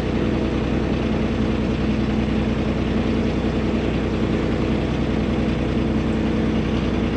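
Sailboat's engine running steadily while motoring under way, holding an even pitch and level.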